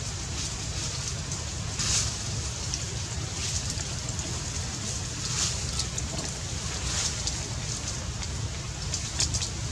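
Steady low outdoor rumble with scattered brief crackling rustles of dry leaf litter, a handful of sharper crackles spaced a second or two apart.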